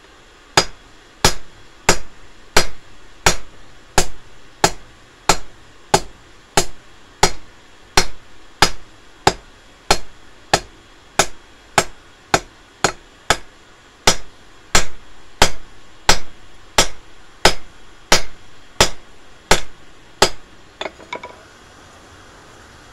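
Hammer striking red-hot steel on an anvil while forging a tent peg, a steady blow about every 0.7 seconds, each with a short metallic ring. Near the end come a few quicker, lighter taps, then the hammering stops.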